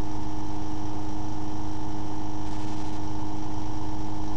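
Bedini SSG motor running steadily at about 1,500 rpm: its magnet rotor spinning past the pulsed coils gives an even, machine-like hum with one strong steady tone.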